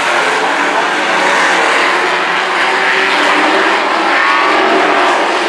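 A pack of dirt-track race trucks lapping a dirt oval, several engines running hard together. Their overlapping engine notes rise and fall steadily.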